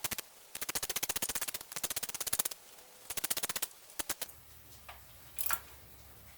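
Ratchet wrench clicking quickly in rapid runs while a pulley bolt is run in, then a few single clicks and a short scrape near the end.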